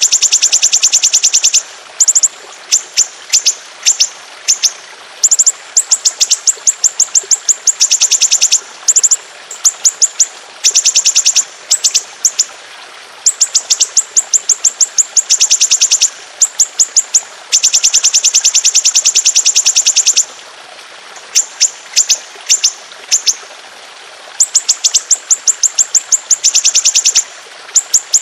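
Songbird song from a masteran tutor recording: long, fast rolling trills of high, rapidly repeated notes. Each run lasts from under a second to about three seconds, with short breaks between runs.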